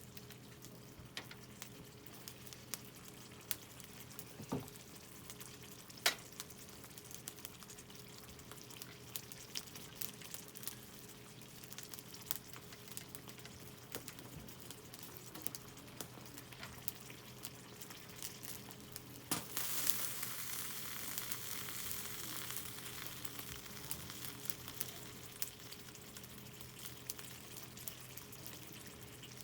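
Food in an open tin can sizzling over a wood campfire, with scattered sharp crackles and pops. A little under two-thirds of the way through, the sizzle suddenly grows louder and stays that way.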